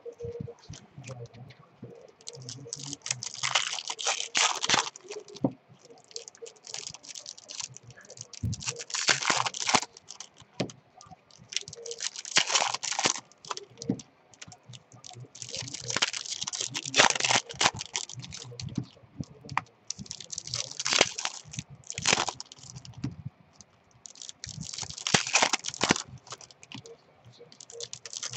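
Foil trading-card packs being torn open, with wrapper crinkling and cards shuffled by hand. The crinkling and tearing comes in short bursts every few seconds, with light clicks of card handling between.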